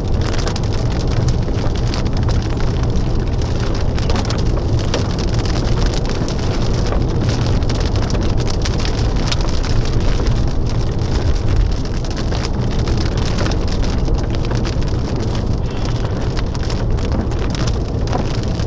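Rain hitting a vehicle's windshield, many sharp drop ticks over a steady low rumble.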